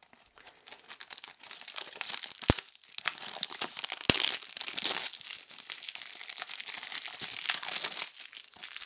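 Plastic shrink-wrap film being torn and peeled off a DVD case: continuous crinkling and crackling, with two sharp clicks about two and a half and four seconds in.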